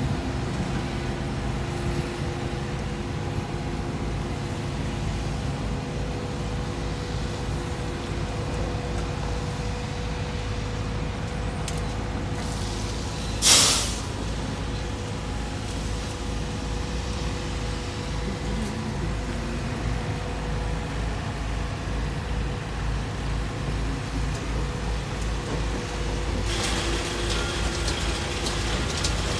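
Tow vehicle's engine running steadily as it slowly backs a boat trailer down a launch ramp. About halfway through there is one short, loud hiss, and near the end a rushing hiss of water comes in as the trailer wheels enter the water.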